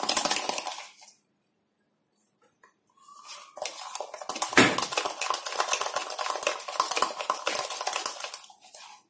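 A spoon rapidly beating instant coffee, sugar and a little water into a thick paste in a mug, clinking and scraping against the cup in quick strokes. It stops for about two seconds after the first second, then starts again, with one louder knock near the middle.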